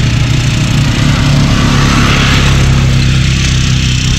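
Quad bike (ATV) engine running with a steady hum as it passes close by.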